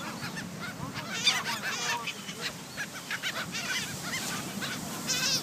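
A flock of gulls calling: many short, overlapping squawks, with a loud cluster of calls about a second in.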